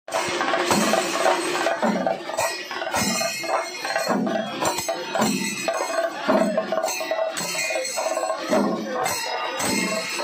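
Kerala temple-festival percussion music: metal cymbals and bells ringing and clashing over low drum strokes that come about once every three quarters of a second.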